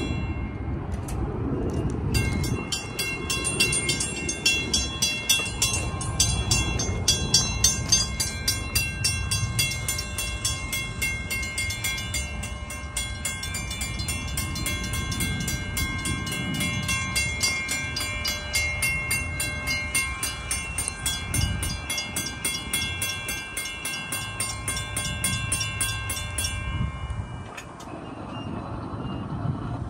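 Railroad crossing signal bells ringing in rapid, even strokes. They start about two seconds in and cut off a few seconds before the end, with wind rumbling on the microphone underneath.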